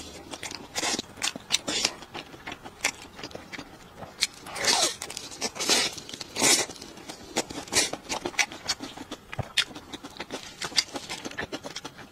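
Close-miked eating sounds of biting into and chewing a sauce-coated fried chicken drumstick: irregular wet mouth clicks and smacks, with a few longer, louder bites about four to five seconds in and again at about six and a half seconds.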